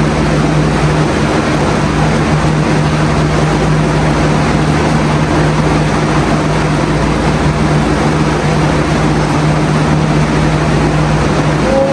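Steady mechanical whir and hum with a constant low drone, from a machine running close by.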